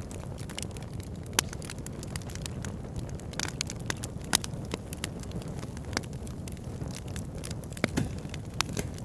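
Wood fire burning: a steady low rumble of flames with irregular sharp crackles and pops, a few louder pops standing out, about a second and a half in, past four seconds and near eight seconds.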